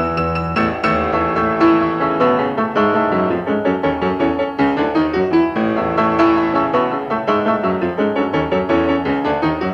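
Piano music: a busy run of quickly struck notes over low bass notes.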